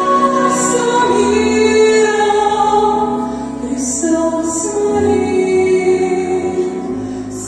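Choir of voices singing a slow Russian-language Christian hymn in long held notes.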